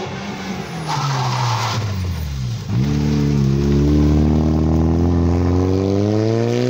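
Rally car engine slowing for a hairpin, the revs falling to a low point about two and a half seconds in, then accelerating hard out of the bend with the engine note rising steadily.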